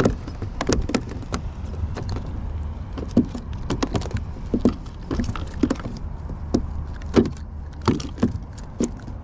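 Fish and metal fishing tackle being handled in a kayak: irregular light clicks, knocks and jangles, over a steady low rumble.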